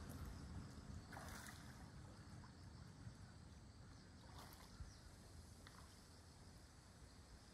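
Faint water splashing from a mute swan bathing and preening on a pond, in two short splashes about a second and about four seconds in, over a low wind rumble.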